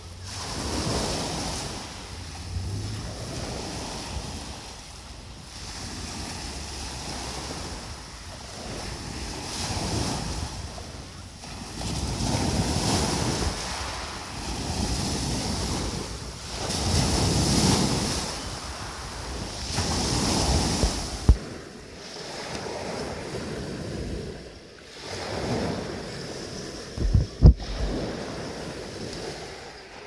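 Sea surf swelling and falling back every few seconds, with wind buffeting the microphone. Two short low bumps come in the second half.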